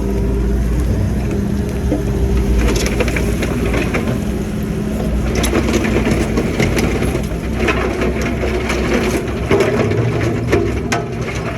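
Hitachi Zaxis excavator working, its engine running steadily under several spells of crunching and clanking, each lasting a second or two.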